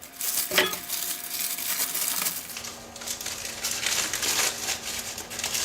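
Newspaper packing rustling and crumpling in an irregular run as parts are unwrapped from it.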